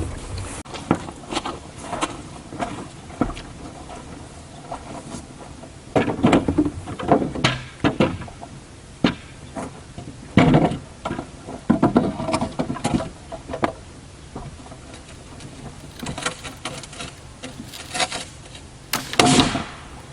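Wood being gathered and handled: irregular knocks, snaps and rustles of dry branches and driftwood, with one loud crack or clatter near the end.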